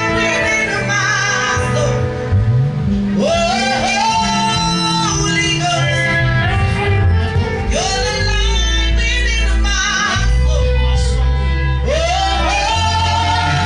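Gospel worship music: sung phrases with sliding pitch over instrumental accompaniment with sustained bass notes.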